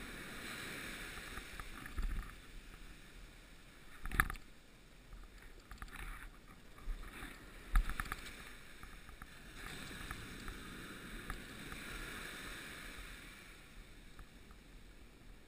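Small ocean waves breaking and washing up a sandy beach in a steady hiss, with a few short knocks, the sharpest about four and eight seconds in.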